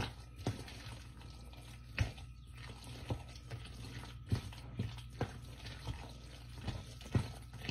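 Wooden spoon stirring a thick, creamy noodle-and-chicken mixture in a glass bowl: irregular short wet squelches and light clicks of the spoon.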